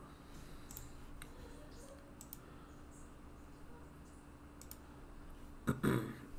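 Computer mouse clicking a few times, sharp single clicks spaced out as files and windows are opened, with a louder short thump near the end.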